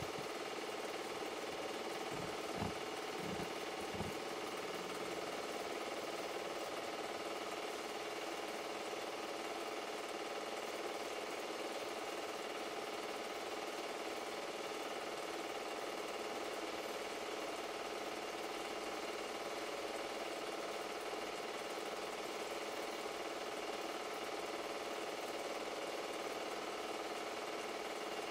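Super 8 film projector running, a steady mechanical whir and rattle of the film transport and fan. A few soft low knocks come about two to four seconds in.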